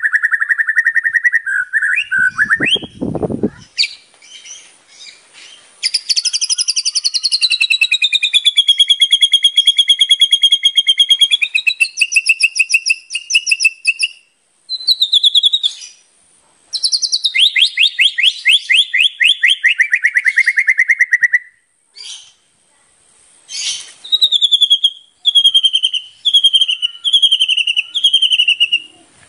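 White-rumped shama singing vigorously in long, rapid trilled phrases. One trill sweeps down and back up, another falls steadily, and near the end comes a run of short falling notes, about one a second.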